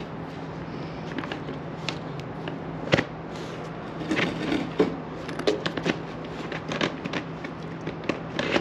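Scattered clicks, light knocks and rustles as a motorcycle tank bag on its quick-release mount is pushed and the handlebars are turned against it, with one sharper knock about three seconds in. A low steady hum runs underneath.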